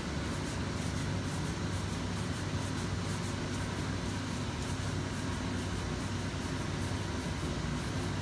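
Shoe-repair finishing machine running with a steady hum, its spinning brush wheels buffing the cream polish on a leather boot.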